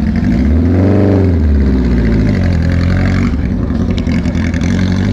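Porsche 904 Carrera GTS engine running as the car drives slowly past. It is loud and steady, and its pitch rises and falls once, about a second in, as it is revved.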